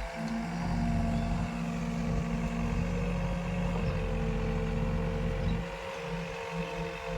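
Diesel engine of heavy machinery, a backhoe loader or tractor, running steadily. Its note dips briefly about five and a half seconds in.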